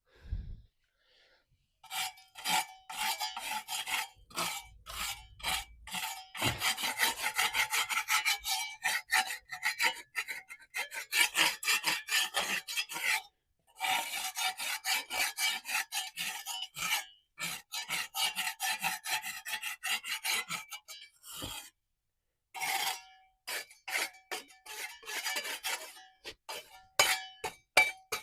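A metal hand tool scraping a hard, gritty surface in rapid repeated strokes, with a slight metallic ring. It pauses briefly twice and then resumes.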